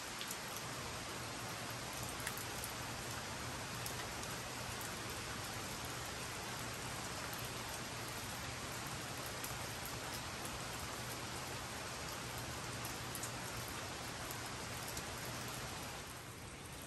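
Steady rain falling, with scattered individual drops ticking through the hiss; it turns a little quieter near the end.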